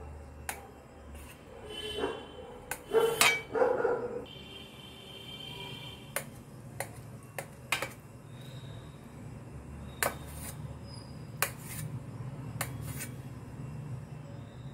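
Knife cutting a block of paneer and clicking against a stainless steel plate, in scattered sharp taps. A few louder sounds come about three seconds in, over a steady low hum.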